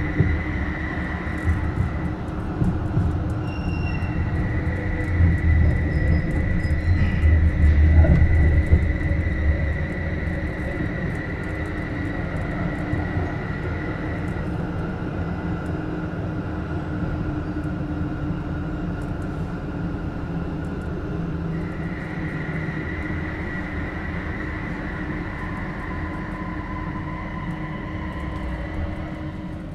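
Rhein-Neckar-Verkehr M8C-NF tram running, heard from inside: a low rumble of wheels on track, loudest about 5 to 10 seconds in, under steady high electrical whines from the modernised drive equipment. The highest whine drops out for several seconds midway, then returns.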